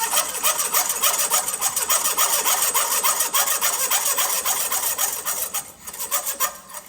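Watchmaker's saw cutting through a piece of rivet stock in rapid back-and-forth strokes, a dense rasping scrape that stops shortly before the end.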